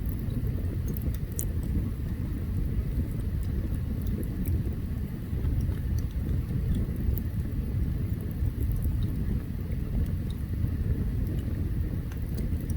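Open campfire burning: scattered sharp crackles and pops over a steady low rumble.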